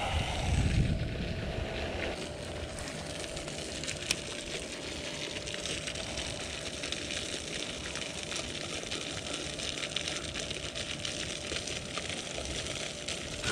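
Wind blowing over the microphone as a steady outdoor hiss, with a stronger low gust in the first second or two. A single sharp click sounds about four seconds in.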